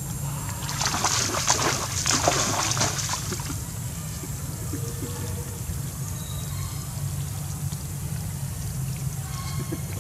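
Macaque monkeys splashing and scrambling through shallow muddy water for about three seconds near the start, over a steady low rumble.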